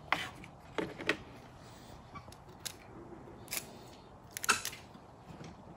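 Clear adhesive tape being pulled off its roll and torn, heard as several short rasps and crackles, the loudest near the end.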